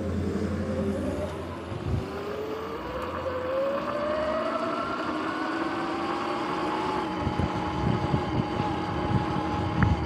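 Sur-Ron X electric dirt bike's motor and drivetrain whining, rising in pitch as it speeds up and then holding steady, over wind rush on the microphone. From about seven seconds in, a series of short knocks.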